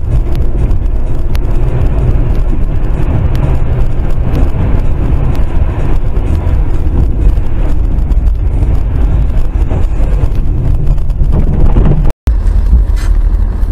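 Steady low rumble of tyres and engine heard from inside a moving car through a dashcam's microphone. It cuts out abruptly about twelve seconds in, and a similar rumble resumes a moment later.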